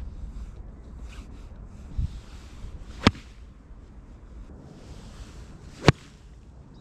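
Two crisp golf iron strikes on a ball hit off an artificial-turf mat, about three seconds apart; the second, near the end, is the louder and follows a short swish of the swing.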